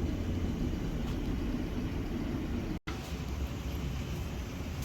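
Steady low rumbling workshop background noise with no distinct tool sounds. It cuts out for an instant a little under three seconds in.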